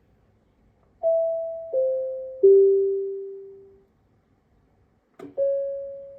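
Public-address announcement chime: three clear bell-like notes stepping down in pitch, each ringing out and fading. Near the end there is a click, followed by a single further chime note.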